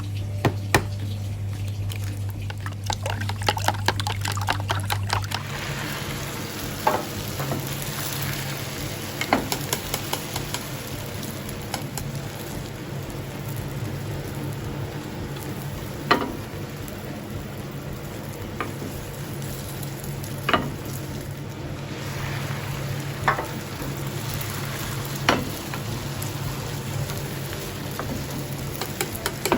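Campfire crackling steadily, with a sharp pop from the burning wood every few seconds.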